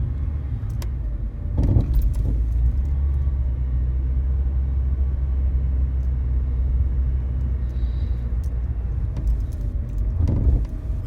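A car driving, with a steady low road rumble and scattered light rattling clicks. Twice, about two seconds in and again near the end, there is a louder bump with knocking from the right front suspension: the wobble noise it makes over even slight bumps in the road.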